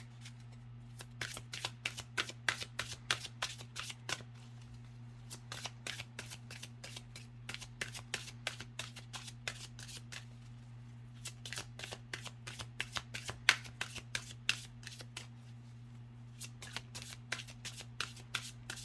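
Oracle card deck being shuffled by hand: a quick run of card clicks and flicks, broken by a few short pauses, over a steady low hum.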